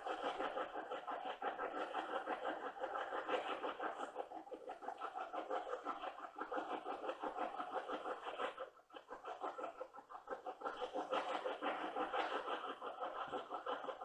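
Handheld spirit box (ghost box) radio scanner sweeping through stations: a continuous fast, choppy crackle of static and clipped radio fragments, briefly dropping away about nine seconds in.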